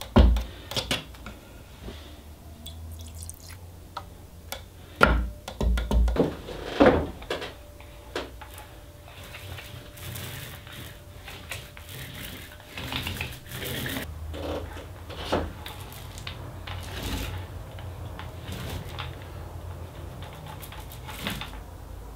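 Small paint roller rolling wet black oil paint over window glass in repeated strokes, a wet, sticky swishing. Near the start come a few sharp knocks from handling the paint can and roller.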